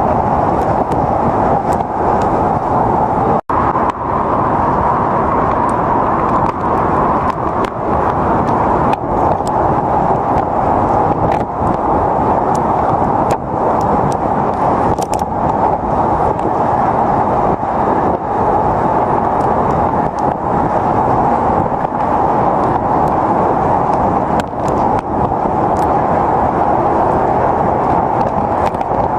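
Typhoon storm noise: a steady, loud rush of wind and rain, with a brief cut-out about three and a half seconds in.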